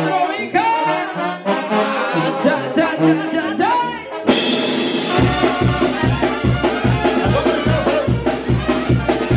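Live banda brass playing: trombones and trumpets carry a melody, and about four seconds in the full band comes in with a steady low bass-and-drum beat underneath.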